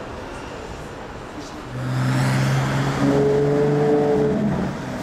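A car engine in street traffic pulling away, getting louder about two seconds in and holding a fairly steady note that rises slightly before easing off near the end.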